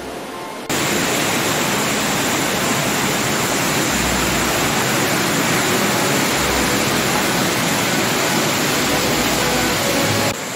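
Swollen mountain stream rushing through a narrow gorge, its whitewater close by: a loud, steady rush of water that cuts in suddenly just under a second in and drops away just before the end.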